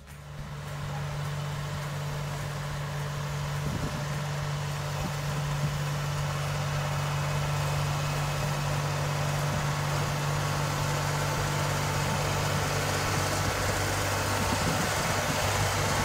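Compact tractor engine running steadily under load while pulling a plow through sod, a constant low hum.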